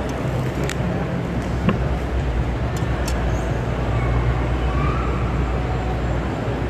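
Steady low background rumble, with a few light clicks about one, two and three seconds in.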